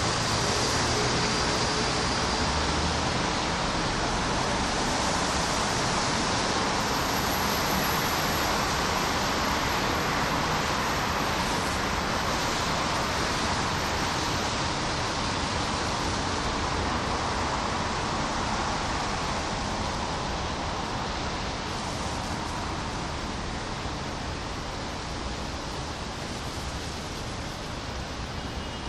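Steady rain falling on tree leaves and a wet street, an even hiss that grows gradually softer over the last third.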